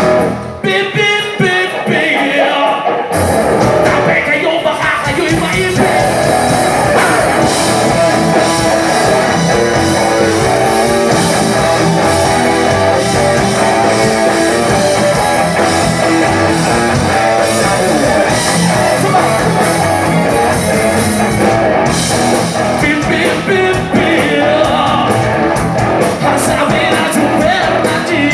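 A rock band playing live, with electric guitar and a singer; the bass and drums fill in about three seconds in, after a lighter opening.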